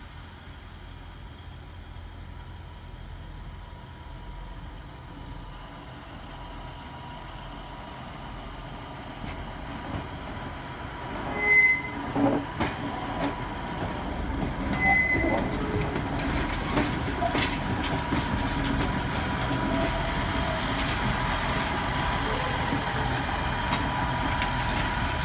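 A two-car 620/720 class diesel rail motor set rolling slowly past, its engine and wheel rumble growing steadily louder as it draws near. About halfway through come two brief high-pitched squeals, about three seconds apart.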